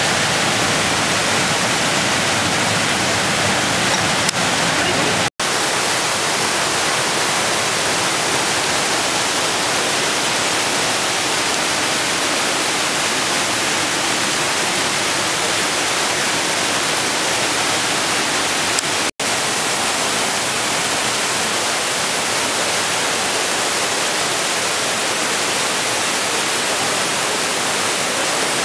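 Steady loud rush of a mountain torrent, the Hammersbach, pouring through a narrow rock gorge. The sound cuts out for an instant twice, about five seconds in and again about nineteen seconds in.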